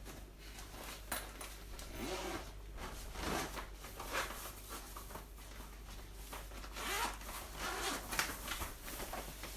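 Plastic shopping bags and food packaging rustling and rubbing in irregular swishes as groceries are unpacked by hand.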